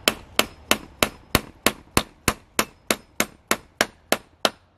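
Hammer striking a nail with a quick, steady run of about sixteen ringing blows, about three a second.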